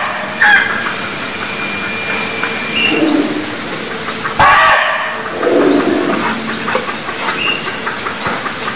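Barking deer (muntjac) giving one short, loud bark about four and a half seconds in, over a steady series of short, high, rising chirps repeating under a second apart.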